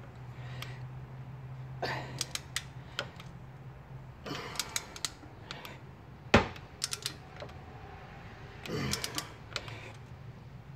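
A click-type torque wrench ratcheting in short bursts of quick clicks as it tightens the 21 mm strut-to-knuckle nuts toward 103 ft-lb. One sharp, loud knock comes about six seconds in.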